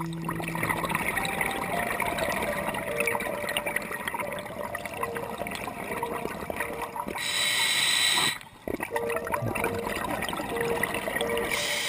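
Underwater sound of scuba diving: a diver's regulator exhales bubbles in two rushing bursts of about a second each, about seven and eleven and a half seconds in, over a steady crackle of many fine clicks.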